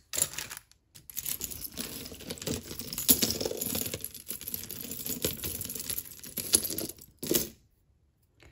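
Costume jewelry clinking and rattling as a hand rummages through a heap of beaded necklaces, metal chains and bracelets: a dense run of small clicks that stops about a second before the end.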